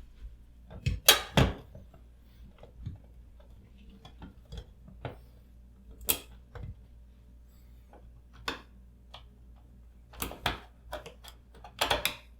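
Small metal screws and switch hardware handled during reassembly of a wall switch box, giving scattered clicks and clinks. The loudest knocks come just after a second in and again near the end.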